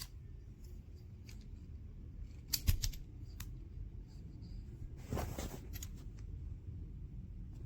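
Handling noises: a quick cluster of sharp clicks about two and a half seconds in, the loudest sound, then a short rustle past the middle, over a steady low hum.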